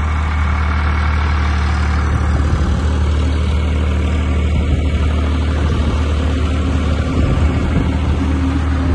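Tractor's diesel engine running steadily with a low drone as it pulls a seed drill through crop stubble.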